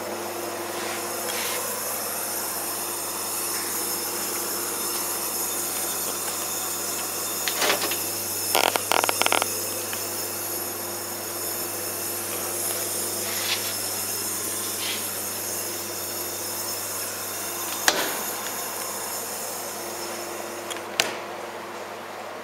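Steady mechanical hum and hiss, with a few scattered knocks and clicks and a quick rattle of clicks about nine seconds in.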